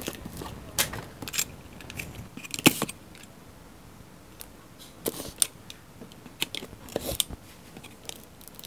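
Handling of a USB microphone's box and packaging during unboxing: scattered clicks, taps and short rustles of cardboard and plastic.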